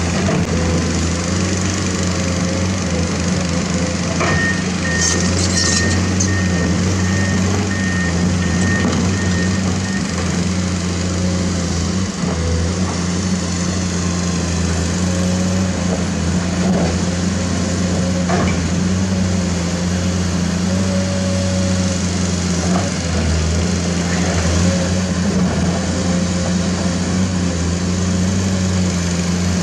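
Heavy diesel construction machinery running steadily, a deep continuous engine drone. A repeated high beep sounds for several seconds in the first third.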